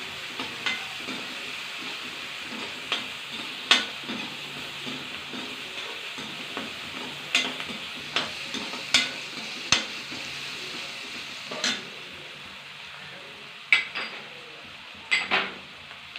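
Chopped onions sizzling in hot oil in a kadai as they are sautéed with salt toward golden brown. A spoon scrapes and knocks against the pan a dozen or so times as they are stirred, and the sizzle gets quieter near the end.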